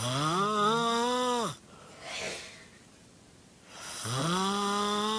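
A person snoring loudly: two long, droning snores about four seconds apart, each rising in pitch and then holding, with a softer breath out between them.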